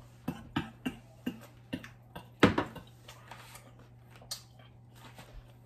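Close-up eating sounds: a run of small clicks and smacks while chewing, with one louder, longer sound about two and a half seconds in.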